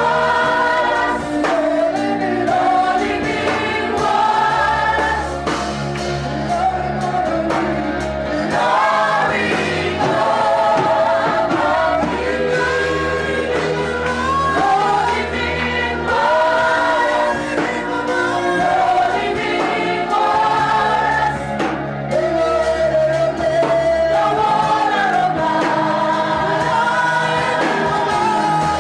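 Live gospel worship music: a group of singers, in the manner of a choir, singing a sustained worship song over bass and keyboard accompaniment.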